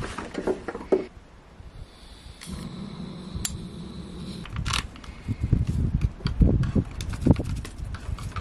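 Hands rummaging through camping gear: rustling bags and packets, with scattered knocks and clicks that grow busier in the second half. A steady low hum runs for about two seconds in the middle.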